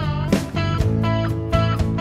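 Music led by guitar, its notes bending and sliding in pitch over held low notes and a steady beat of about two hits a second.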